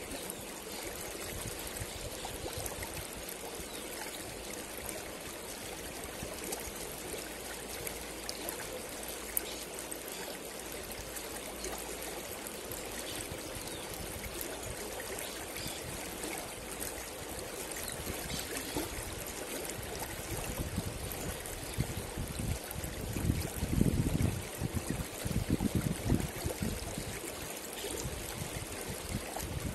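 Shallow river running over rocks, a steady rushing of water, with low rumbles coming and going in the last third.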